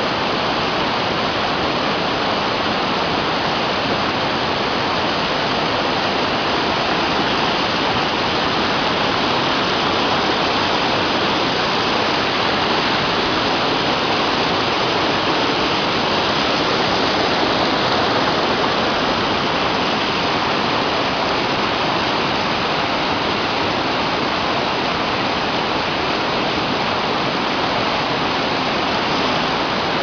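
Waterfall cascading over boulders: a steady rush of white water that does not let up.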